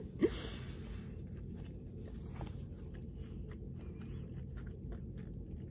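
A person chewing a mouthful of food close to the microphone, with soft, wet mouth clicks over a steady low hum. There is a short breathy sound about a second in.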